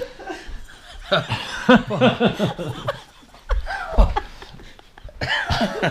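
People laughing and chuckling, breaking up during a take, with a couple of low bumps about halfway through.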